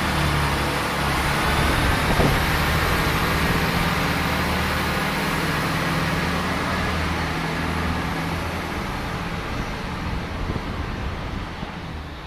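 Class 158 diesel multiple unit pulling away from a station platform: its underfloor diesel engines running with a steady low drone and wheel and rail noise as the coaches pass, fading gradually as the train draws away.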